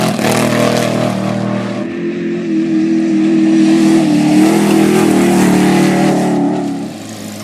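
Off-road race vehicle's engine running hard, with a rush of wind and road noise over the first two seconds. The engine note then holds steady, lifts slightly, and eases off near the end.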